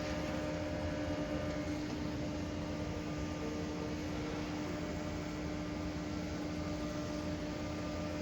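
A steady mechanical hum: a constant low tone over an even hiss, unchanging throughout.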